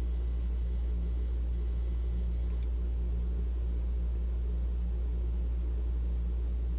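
A steady low hum, with a faint high-pitched whine in broken stretches that stops about two and a half seconds in.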